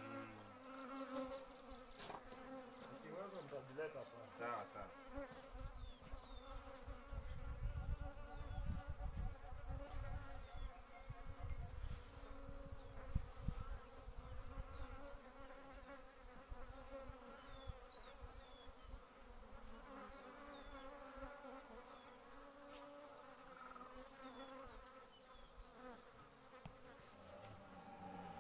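Honeybees buzzing in flight around a spill on a table: a steady hum of wingbeats. Faint short high chirps sound now and then, and a low rumble swells in the middle.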